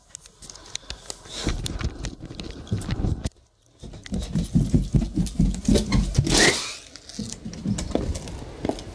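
Footsteps and knocks from a handheld phone while someone walks through a house and down carpeted stairs, with a brief silent gap a little past a third of the way through. Near the end a fainter steady hiss of rain comes in.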